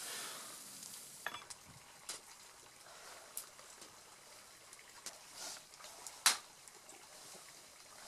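Food sizzling softly in a frying pan on a small camping stove for about the first second, then a quiet stretch with faint scattered clicks and handling noises, the sharpest click about six seconds in.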